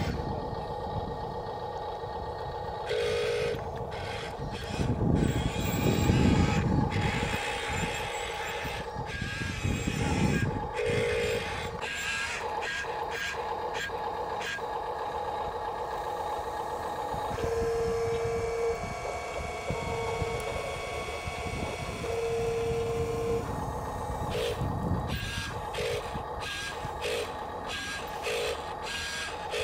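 A Huina RC dump truck running, its electric motor whining under the toy's electronic sound effects: steady tones with repeated short beeps and tone pulses. It drives, then raises its tipper bed to dump its load of sand.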